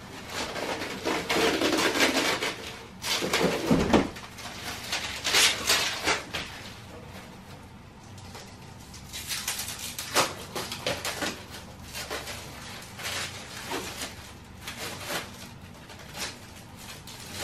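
Clear plastic bag and bubble wrap crinkling and rustling in irregular bursts as a championship belt is unwrapped and pulled out of its packaging. The rustling is heaviest in the first six seconds and picks up again around ten seconds in.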